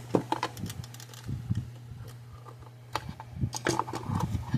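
Light, irregular clicking and tapping as a solid-core wire is handled and pushed into a plastic terminal block, over a steady low hum.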